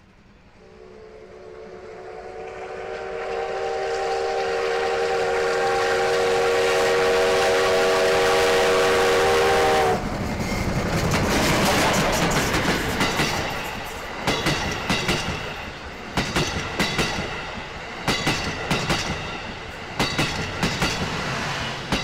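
JNR Class D51 steam locomotive D51 200 blowing a long, chord-like steam whistle as it approaches, louder as it nears, the whistle cutting off suddenly about ten seconds in as the engine passes close by. The passing locomotive's noise follows, then the coaches' wheels clattering over the rail joints in repeated groups of clicks.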